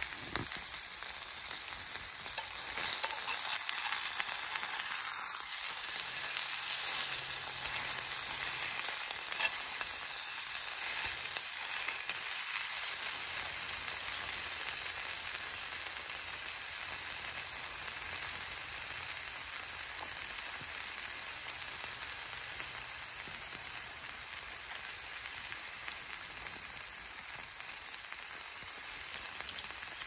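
Food sizzling in a pan over a camp stove: a steady frying hiss.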